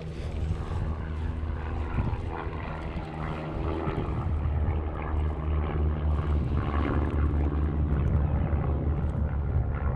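Wind buffeting the microphone on open water: a steady low rumble.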